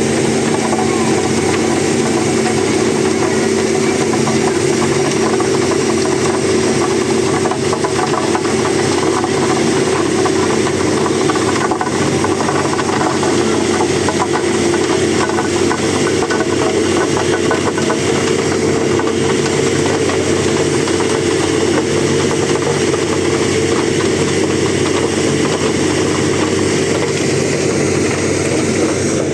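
Diesel engine of heavy road-construction machinery running steadily and loudly, with no change in pitch.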